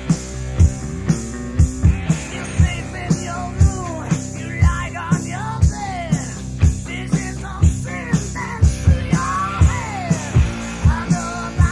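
Rock band studio recording: a steady beat about twice a second under bass and guitars, with a higher melodic line bending and sliding in pitch through the middle.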